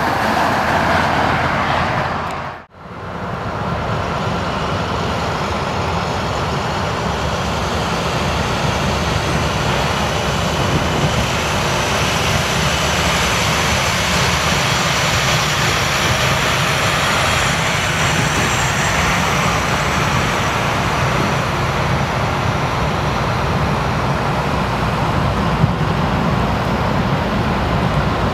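Steady rumble of an approaching freight train led by a GE ES44AC diesel locomotive. About three seconds in, the sound briefly fades out and back in.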